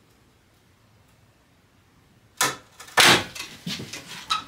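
A hide-glued wooden joint giving way under load: a sharp crack about halfway through, a louder crack a moment later, then wooden knocking and rattling as the plywood lever arm swings loose.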